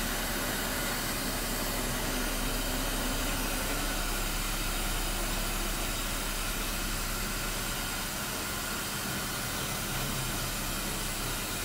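Steady, even hiss with a faint low hum underneath, with no distinct clicks or instrument sounds standing out.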